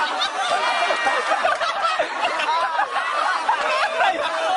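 A crowd of soldiers laughing and shouting over one another, many voices at once.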